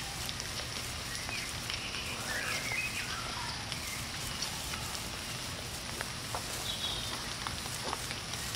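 Woodland ambience: a steady hiss with birds chirping a few times, mostly a couple of seconds in and again near the end, and faint clicks of footsteps on the path.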